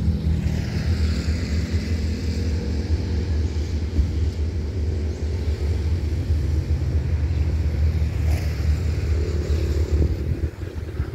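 A diesel engine running steadily, a loud low rumble with a hiss above it.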